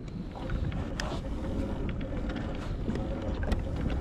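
Wind buffeting the microphone and water slapping against a fishing kayak's hull, with scattered short splashy ticks and a faint steady hum underneath.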